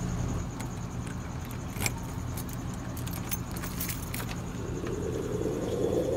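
A bunch of keys jangling while a key is pushed into a doorknob lock and turned, with a run of sharp metallic clicks over the first four seconds. A low steady rumble runs underneath.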